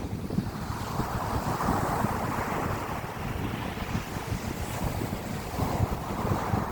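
Wind buffeting the microphone, a rough low rumble, with a rushing wash of noise that swells about two seconds in and again near the end.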